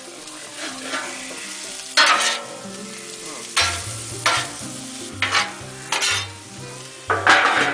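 Vegetables sizzling on a Blackstone flat-top griddle while a spatula scrapes and stirs them across the steel plate in separate strokes, about one a second. A low steady hum joins about halfway through.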